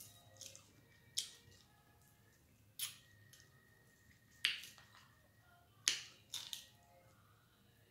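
Crispy fried chicken wing being pulled apart by hand and eaten, close to the microphone: about six sharp crackles of the fried crust, spaced a second or more apart.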